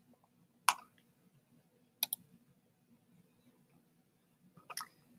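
Computer mouse clicking: a single sharp click a little under a second in, a quick pair of clicks about two seconds in, and a few softer clicks near the end.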